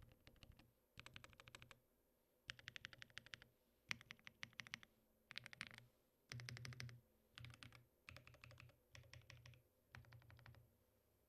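Typing on a Mode Envoy mechanical keyboard with factory-lubed Matcha Latte switches, Mode Tomorrow keycaps and no case foam, sitting on a bare desk without a mat. Quick runs of keystroke clacks come in about nine short bursts with brief pauses between them, and stop a little before the end.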